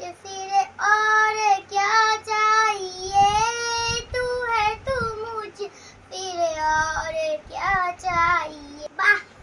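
A young girl singing a melody unaccompanied, holding long notes and gliding between them, with a few short breaks for breath.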